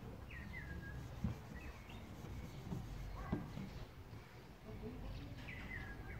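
Small birds chirping, a few short falling calls repeated several times, over a steady low background rumble. Two sharp soft knocks, about a second and three seconds in, are the loudest sounds.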